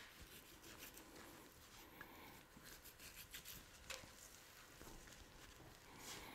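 Faint slicing and scraping of a chef's knife cutting through the fat seam of a raw beef brisket to separate the point from the flat, with gloved hands rubbing and pulling at the meat. There are a few soft ticks among the scraping.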